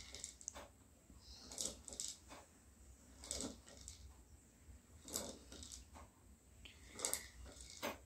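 Faint creaks and knocks from a toy horse rocker being rocked by a toddler, one about every one and a half to two seconds.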